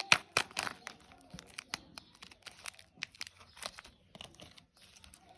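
Candy wrapper being torn open and crinkled, with quick irregular crackles that are loudest in the first second and thinner after that.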